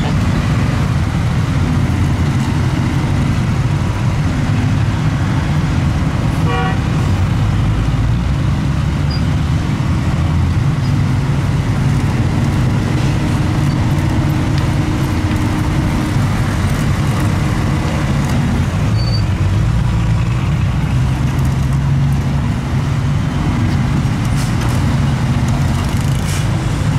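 Steady low rumble of idling truck engines and passing road traffic, with a short vehicle horn toot about six seconds in.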